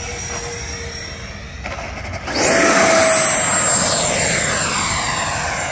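Electric ducted fan of an FMS F-86 Sabre 80mm RC jet whining in flight at low power on approach. About two seconds in it turns suddenly much louder, a rushing whine, as the jet touches and goes around.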